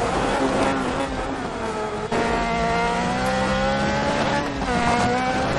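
Off-road buggy engine under hard acceleration, its pitch climbing steadily and dropping abruptly at gear changes about two seconds in and again about a second before the end.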